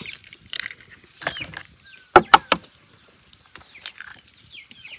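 Eggs being cracked one after another: sharp eggshell cracks and knocks, the loudest close together a little past two seconds. Faint bird chirps in between.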